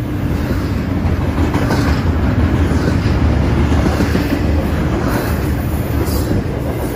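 Double-stack intermodal freight cars of a BNSF train rolling past at speed: a steady low rumble of steel wheels on the rails.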